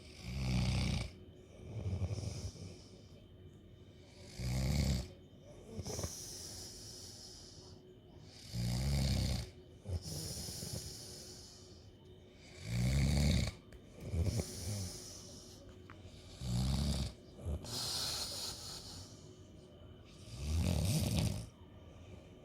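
A man snoring in deep sleep: a low snore on each in-breath, about every four seconds, with a hissing out-breath between.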